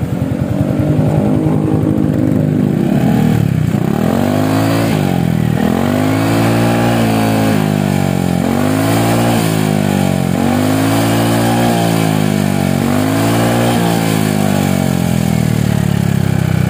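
A Yamaha XMAX 250's single-cylinder four-stroke engine is revved again and again, its pitch rising and falling about every one and a half seconds. It sounds through the stock muffler, drilled out and fitted with a stainless slip-on header pipe, and the note stays mellow.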